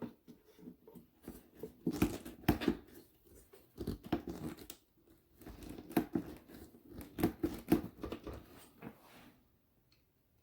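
Rubber air boot being worked and pushed onto the carburetor of a 1985 Honda ATC 200X by hand: irregular rubbing and scraping noises with sharper knocks, stopping about nine seconds in.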